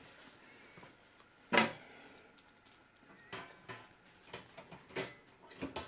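Wire-mesh basket handled at its metal clip: one sharp click about a second and a half in, then a run of smaller clicks and taps of metal wire.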